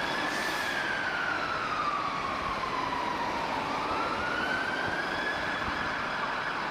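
UK fire engine siren sounding a slow wail: a single tone falling steadily over about three seconds, then rising again, over steady street noise.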